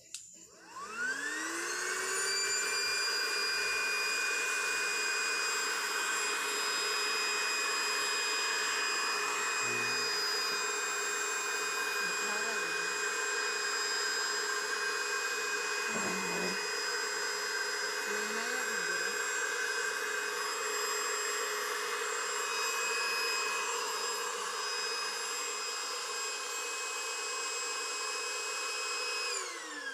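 Electric air pump inflating an inflatable pool. Its motor spins up with a rising whine in the first second or two, runs steadily, and winds down with a falling whine near the end.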